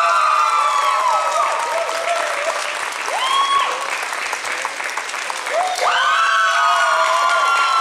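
Audience applauding, with several voices calling out in long, drawn-out cheers: one group near the start, a short call about three seconds in, and another group about six seconds in.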